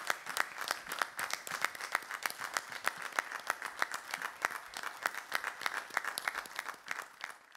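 A small group of people applauding, with dense, uneven hand claps that thin out and fade near the end before stopping abruptly.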